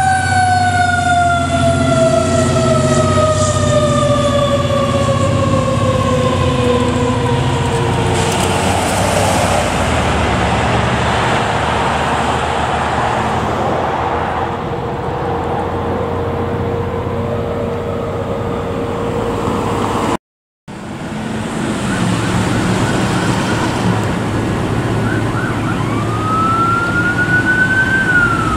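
Fire engine pulling away, its siren winding slowly down in pitch and then holding one low note over the rumble of the truck's engine. After a brief cut, an ambulance siren rises and then falls near the end.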